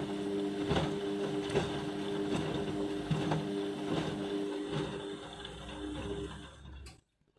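Indesit washing machine running, its drum turning: a steady motor whine with a regular knock a little more than once a second. It fades and then cuts off sharply near the end.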